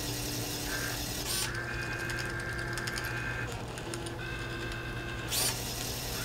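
Homemade paper-tape Turing machine at work over a steady motor hum. Two spells of high motor whine with fast ticking, each one to two seconds long, come as its tape drive moves the tape along during the erase step. A sharp click comes about a second in and another near the end.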